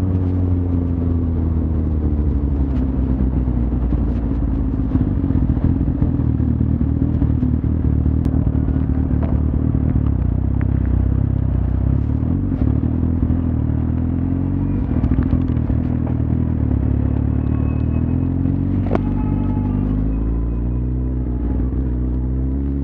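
Suzuki GSX-R1000 inline-four engine running while the bike is ridden. Its pitch falls over the first couple of seconds, holds fairly steady, then rises again near the end, with a few scattered clicks.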